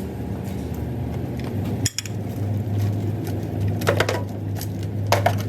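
Metal pieces clinking against each other a few times, twice in the second half, over a steady low hum.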